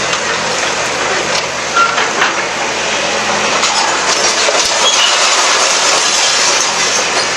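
Bulldozer demolishing houses: its engine running, with scattered knocks and crunches of breaking debris.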